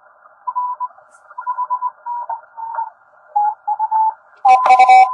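Morse code heard through a ham radio transceiver on 10 m CW: several keyed tones at slightly different pitches over a narrow band of receiver hiss. Near the end a much louder keyed tone comes in at a single lower pitch.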